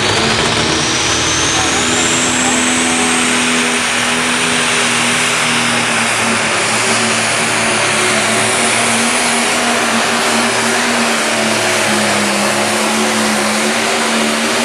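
Turbocharged diesel engine of a 10,000 lb pro stock pulling tractor running flat out under load as it drags the weight sled, loud and steady. A high turbocharger whine rises over the first few seconds, then holds.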